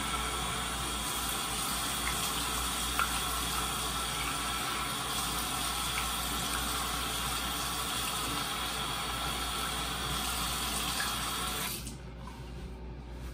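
Bathroom sink faucet running steadily into the basin, with a few small splashes as water is scooped onto the face. The water shuts off about twelve seconds in.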